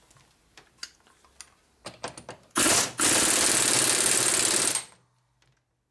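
A power tool spinning a threaded part in and out to burnish the threads on a 1942 Harley-Davidson WLC transmission part. It runs in a short burst, then for about two seconds before stopping, after a few light metallic clicks.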